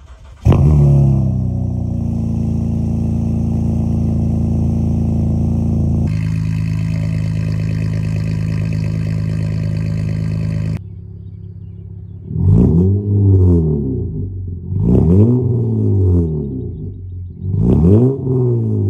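Honda Ridgeline's 3.5-litre V6, exhaust fitted with RV6 pre-cat deletes and a valved exhaust, cold-starting about half a second in and settling into a fast idle. The exhaust tone changes about six seconds in as the valve is opened. After a cut, the engine idles and is revved three times, each rev rising and falling, with the valve closed.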